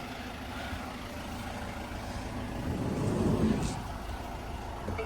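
A motor vehicle's engine running steadily, a low hum that swells slightly about three seconds in.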